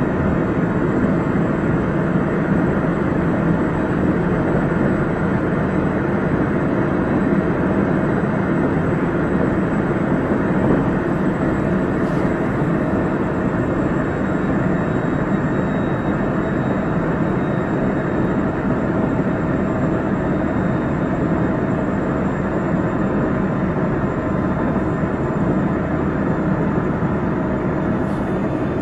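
Running noise inside a JR Central 373 series electric multiple unit at steady speed: an even rumble of wheels on rail with a faint high whine held steady throughout.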